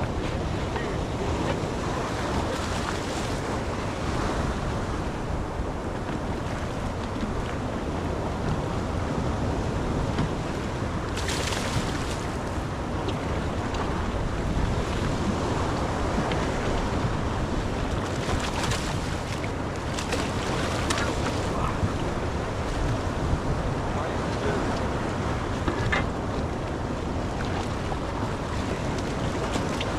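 Steady wind buffeting the microphone over the wash of sea waves, broken by a few brief clicks and knocks.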